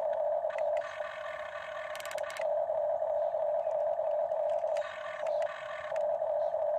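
Electric gear motors of a Huina RC toy excavator whining steadily as the arm and bucket move. The whine changes tone twice, for about a second or so each time, as different functions engage.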